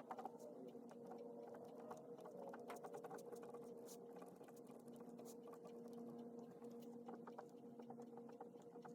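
Faint pen writing on paper: quick, irregular scratches and taps of the pen, over a low steady hum.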